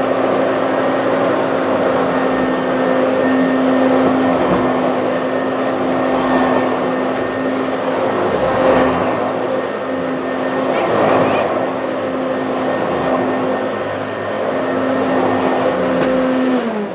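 Hoover Turbo Power upright vacuum cleaner running with a steady motor hum and rush of air while hoovering up small bits of paper. It is switched off near the end, and the motor's pitch falls as it winds down.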